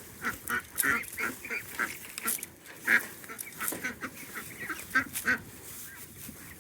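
Domestic ducks quacking: many short, overlapping calls, a few a second and irregular, as they feed on fresh water and seeds.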